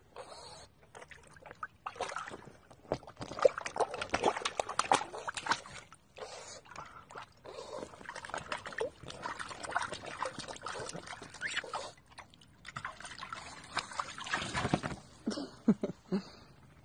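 A pug splashing and pawing through shallow water in an inflatable paddling pool: irregular bursts of splashing and sloshing, broken by brief pauses.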